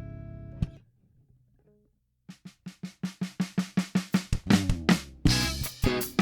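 Lakland Skyline 55-02 five-string electric bass. A ringing note is muted with a click under a second in. After a short pause comes a fast, percussive run of repeated notes, about six a second, that grows louder.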